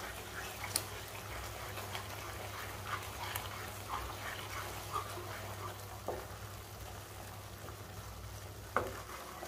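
Wooden spatula stirring thick banana halwa and ghee in a nonstick kadai: soft scrapes and light, irregular taps against the pan, over a low steady hum that stops near the end.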